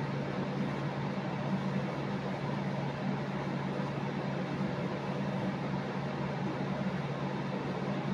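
A steady low machine hum with an even hiss over it, like an electric fan or air conditioner running.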